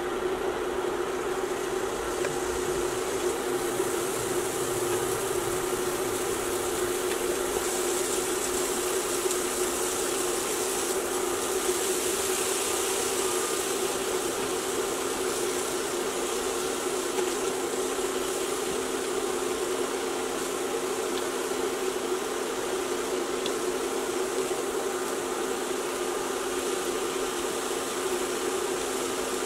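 Steady electric hum with an even hiss from an electric skillet heating a shallow layer of water, which simmers under the vegetables; the hiss swells a little about a third of the way in.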